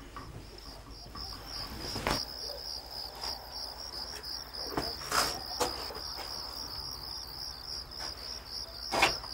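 Crickets chirping in a steady, fast pulsing trill, with a few scattered knocks or clicks, the sharpest one near the end.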